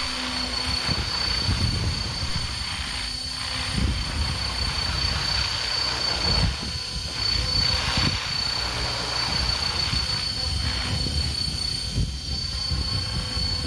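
Radio-controlled helicopter hovering: the main rotor gives a low, fluttering chop under a steady high-pitched buzz from the tail rotor.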